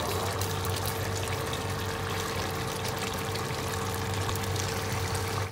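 Pot of chicken adobo with quail eggs simmering: a steady bubbling hiss with many small pops, over a steady low hum.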